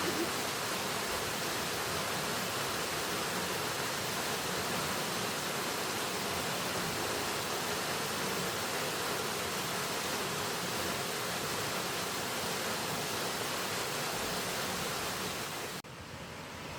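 Waterfall's steady rush of falling water, an even hiss. Near the end it cuts suddenly to a quieter, duller rush.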